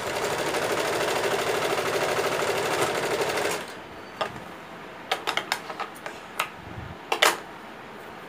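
Electric sewing machine running at a steady fast stitch for about three and a half seconds, then stopping abruptly at the end of a seam. After it, a scatter of sharp clicks, knocks and cloth rustles as the blouse is handled and pulled clear, the loudest knock about seven seconds in.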